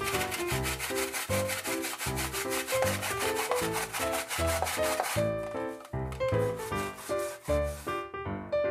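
Daikon radish being grated on a stainless steel grater: quick, even back-and-forth scraping strokes, several a second. It gets quieter about five seconds in and stops near the end.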